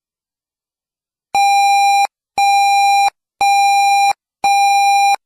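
Emergency Alert System alert beeps: after about a second of silence, a steady electronic beep sounds four times, each just under a second long, about once a second.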